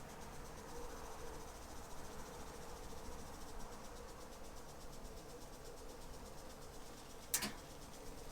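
Crickets chirring steadily over a faint low hum, with one sharp click about seven seconds in.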